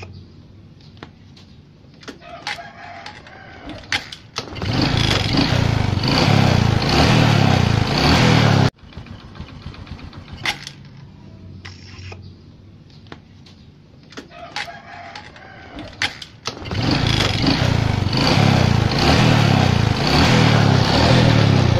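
Motorcycle engine running hard twice, each burst several seconds long, the first cut off abruptly; it is the engine noise the mechanic takes for a worn piston and connecting rod. In the quieter gaps there are scattered clicks and a faint rooster crowing.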